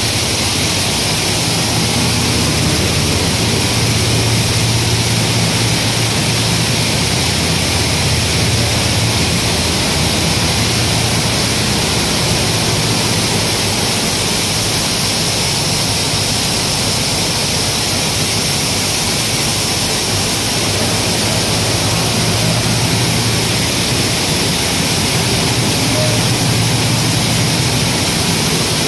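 Automatic grain-cleaning plant running: the grader/destoner decks shaking grain through, with bucket elevators working, giving a steady mechanical hum under an even hiss.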